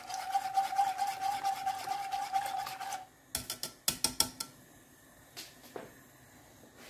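Wire whisk beating a thin sauce in a non-stick saucepan, its wires scraping the pan in rapid strokes for about three seconds, with a steady tone running under them. A few sharp knocks follow about a second later.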